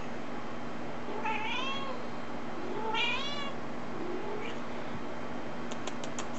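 A kitten meowing in high-pitched calls: two clear meows about a second and a half apart, then a fainter short one, with a few quick light clicks near the end.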